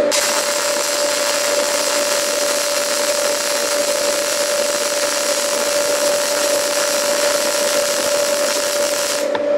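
MIG welding arc burning steadily: a continuous crackling hiss as the wire feeds into the weld, over a steady hum. The arc cuts off near the end, leaving only the hum.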